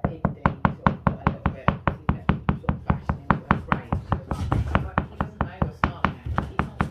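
A hand knocking rapidly and evenly on a hard floor, about six knocks a second, calling a blind puppy over by the vibration.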